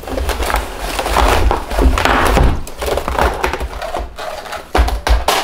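A goodie bag of small boxed beauty products being tipped out onto a table: a continuous jumble of rustling and clattering packages with low knocks.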